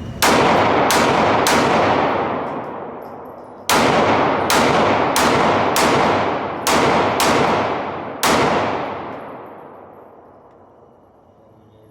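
Ten pistol shots: three in quick succession, a short pause, then seven more at an uneven pace. Each shot rings on in a long echoing tail.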